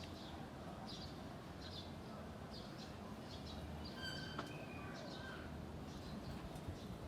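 Birds chirping, short high chirps repeating about once a second, with one short whistled call about four seconds in, over a steady low outdoor hum.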